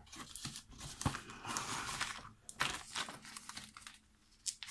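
Plastic packaging bags crinkling and rustling as a hand rummages in a cardboard mailing box and pulls out a bagged lock, irregular handling noise that dies away near the end.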